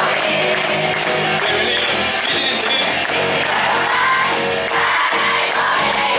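Live concert music with singing, and the audience shouting and cheering along.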